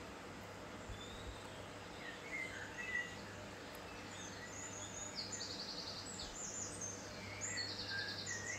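Faint birdsong: scattered short chirps and two quick rapid trills, about halfway through and near the end, over a steady low hum.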